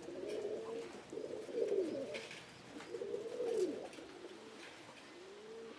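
Domestic pigeons in a loft cooing: a run of low, rising-and-falling coos, one after another, fading toward the end.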